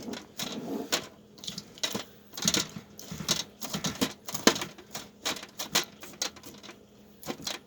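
Irregular light clicks and knocks from hands-on kitchen work, a few each second.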